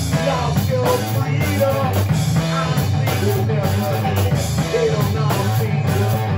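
Live rock band playing: drum kit and electric guitar, with a man singing over them.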